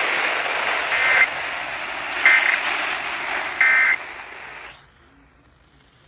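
Three short warbling data bursts of an Emergency Alert System SAME signal, about a second and a half apart, over a steady hiss that cuts off about five seconds in. Each burst is only about a third of a second long, which fits the end-of-message code that closes an EAS alert.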